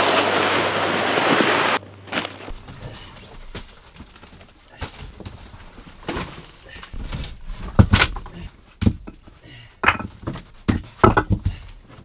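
A loud rushing hiss for about the first two seconds that cuts off suddenly. Then scattered knocks and thumps with footsteps as a woven pack basket and a backpack are set down on the earth floor of a wattle shelter, the loudest thumps late on.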